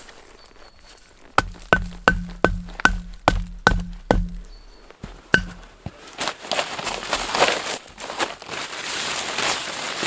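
An axe chopping into wood: a quick run of about eight ringing blows, a single further blow a second later, then a few seconds of rough rasping noise.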